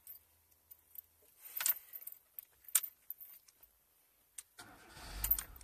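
Keys jingling with a few sharp clicks, then about four and a half seconds in the Tofaş Doğan SLX i.e. engine is cranked and catches into a low running rumble, starting now that its faulty crankshaft position sensor has been replaced.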